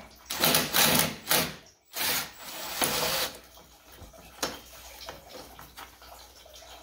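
Cordless 1/4-inch hex impact driver (Milwaukee M18 Fuel) backing out a 10 mm bolt in several short bursts in the first second and a half, then a longer run of about a second. After that, a few faint metal clicks as the loosened bolt and bracket are handled.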